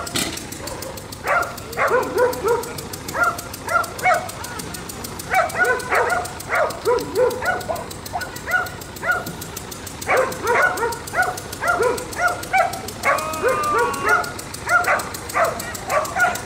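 A dog barking over and over in quick runs of about two or three barks a second, with a couple of short pauses.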